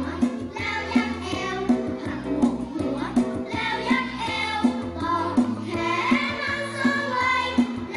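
A children's jingle: voices singing a bright tune over music with a steady beat.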